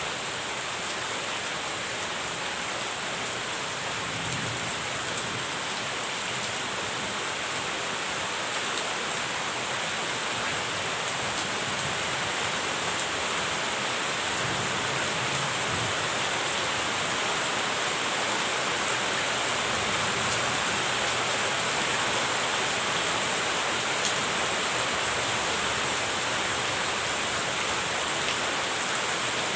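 Steady rain falling, an even hiss that grows slightly louder over time.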